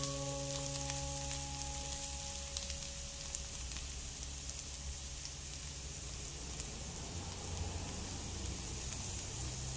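Diced onion, carrot and celery sizzling steadily as they sauté in oil in a nonstick frying pan, with small scattered crackles as a spatula stirs them.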